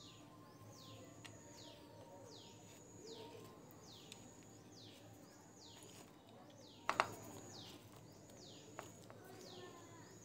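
A bird calling over and over, a short high chirp falling in pitch about once a second, faint. A single sharp knock about seven seconds in.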